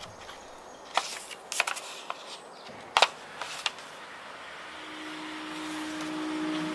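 A few light taps and clicks from handling an album package and its contents, over a faint hiss. Near the end a soft held tone of music fades in.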